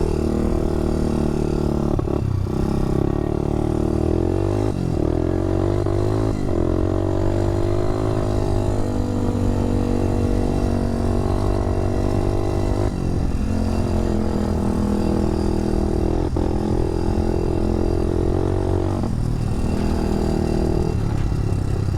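Honda four-wheeler's rebuilt engine running under way, its pitch dipping and rising several times with throttle and gear changes.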